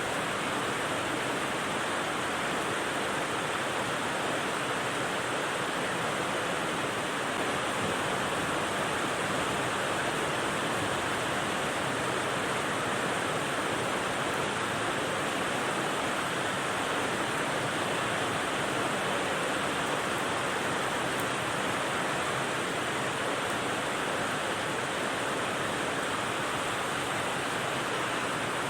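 Steady rain sound played as white noise: an even, unbroken hiss with no separate drops, thunder or changes in level.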